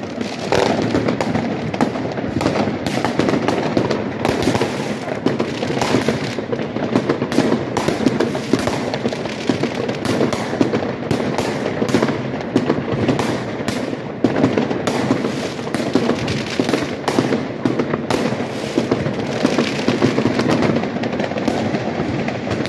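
Many fireworks going off at once: a dense, unbroken barrage of bangs and crackling with no pause.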